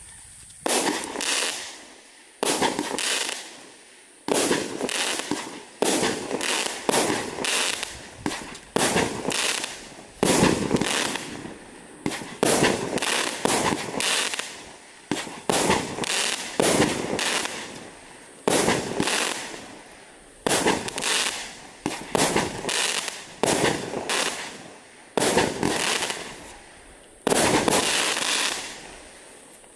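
A 1.3G consumer firework barrage firing a steady run of shots, roughly one a second and sometimes in quick pairs, each burst trailing off into crackle. The volley stops abruptly near the end.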